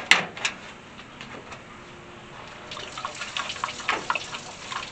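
Engine coolant draining from a pickup's radiator into a drain pan, splashing and dripping in irregular patters that pick up from about halfway through. A couple of sharp clacks come right at the start.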